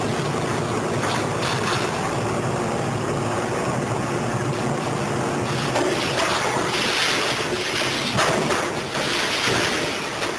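Diesel engine and hydraulics of a Liebherr 904 wheeled material handler running steadily as its orange-peel scrap grapple swings a load of scrap metal. From about six seconds in the noise grows louder and rougher as the scrap is lowered into the steel container.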